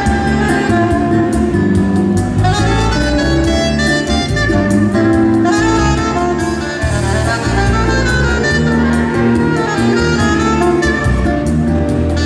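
Saxophone playing a melody live over electronic keyboard accompaniment with a steady beat.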